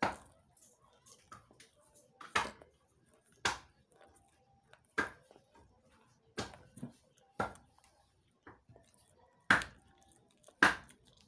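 Skyflakes crackers being bitten and chewed close to the microphone: about eight sharp, dry crunches, a second or two apart, with quieter chewing between them.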